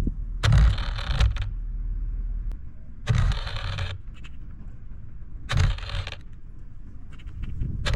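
Rattling in short bursts, about every two and a half seconds.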